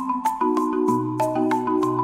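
Background music led by a marimba-like mallet instrument, playing quick repeated notes, about three or four a second, over sustained chords.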